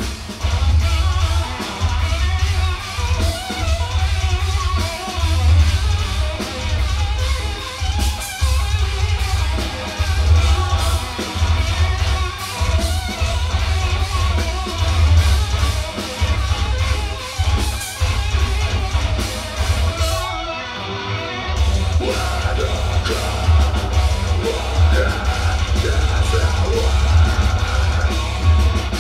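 Live heavy metal band playing: heavily distorted guitars, bass and pounding drums with harsh vocals, heard through the club PA from the crowd. About twenty seconds in the low end drops out briefly, then the band crashes back in.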